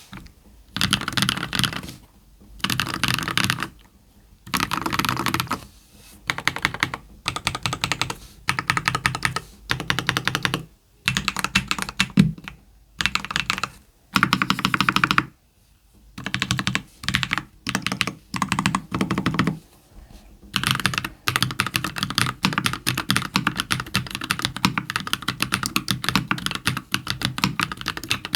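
Typing on an ilumkb Simpler60 mechanical keyboard with lubed JWK Cola switches on an aluminium plate and Aifei semi-transparent keycaps. Fast keystrokes come in short bursts with brief pauses for the first twenty seconds or so, then run on as continuous typing.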